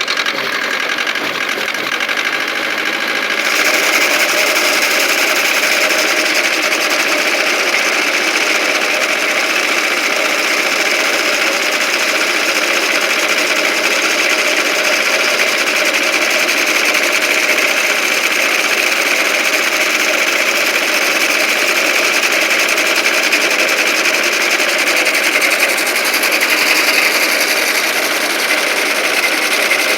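Hinomoto tractor running under load while its sickle bar mower cuts alfalfa and grass, the cutter knife clattering rapidly over the engine. The sound grows louder about three and a half seconds in.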